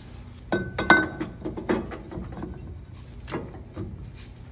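Metal clinks and knocks of a new steel driveshaft yoke being handled and slid onto the splined pinion shaft of a truck drive-axle differential. The loudest clink, with a brief ring, comes about a second in, followed by a few lighter knocks.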